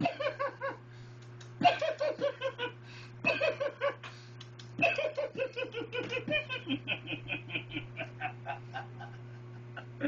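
Hearty laughter in four bursts of quick 'ha-ha' pulses, each burst falling in pitch, the last and longest trailing off near the end, over a steady low hum.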